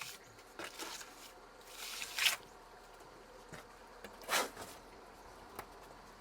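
Steel trowel scraping wet mortar: three short scrapes, the loudest about two seconds in, with a few light clicks between them.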